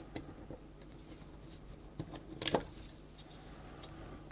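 Small clicks and light taps of a screwdriver and fingers working on a CD player's plastic drive mechanism, with a louder short cluster of clicks about two and a half seconds in.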